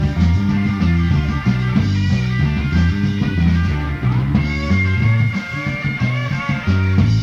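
Rock band playing an instrumental passage with no vocals: electric guitar over a busy bass line and drums.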